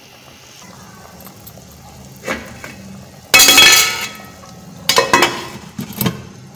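Metal pot lid clattering and clinking against a metal cooking pot: one loud clatter with ringing about three seconds in, then a few lighter clinks. Underneath is the low sound of the curry boiling in the pot.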